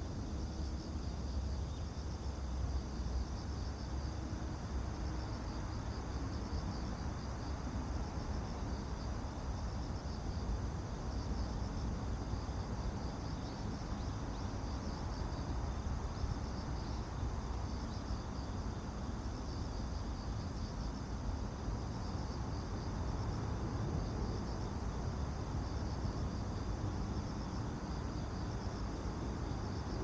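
Insects chirping in a steady, high-pitched pulsing chorus, over a constant low rumble.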